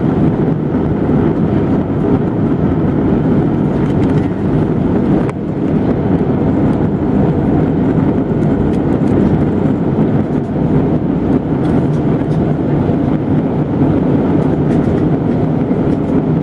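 Steady cabin noise inside an airliner during its descent: the even rush of engines and airflow, strongest in the low and middle range, with a brief dip about five seconds in.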